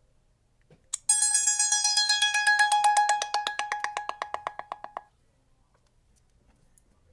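Sony Ericsson Xperia X10 mini pro ringtone: after a short click, a fast bell-like tone repeats about ten times a second on one steady pitch, fading away over about four seconds and then stopping.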